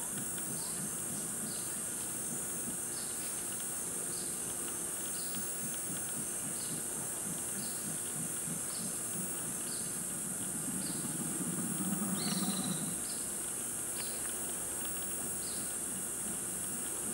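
Mantled howler monkey giving low, pulsed howling that swells to its loudest about eleven to thirteen seconds in. Under it runs a steady high insect drone and a short chirp repeated roughly once a second.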